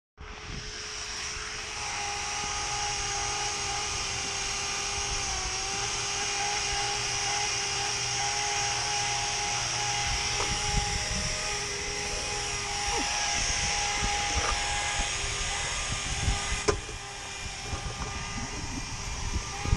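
Handheld electric rotary polisher running against window glass to polish out stains: a steady motor whine with a high hiss. Its pitch dips briefly about five seconds in, and near the end it runs less evenly with a few knocks.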